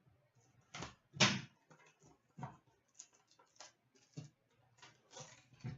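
A hockey card pack being opened and its cards handled: a string of short crinkles, clicks and taps, the loudest about a second in.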